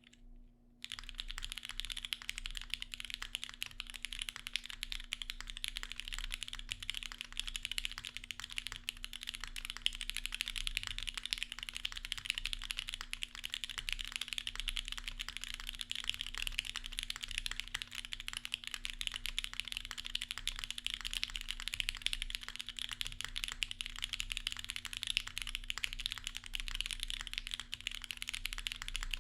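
Continuous typing on a custom mechanical keyboard with an FR4 plate and no dampening: SP Star Meteor White linear switches lubed with 205g0, under GMK ABS keycaps. A fast, unbroken run of keystrokes starts about a second in.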